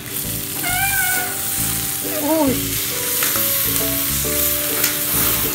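Butter and a skewered squid sizzling on a hot perforated grill pan over a portable gas stove, the hiss building about half a second in as the butter melts.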